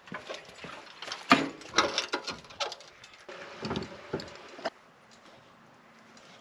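Irregular clicks and knocks of equipment being handled, the loudest a sharp knock about a second in. They stop about two-thirds of the way through.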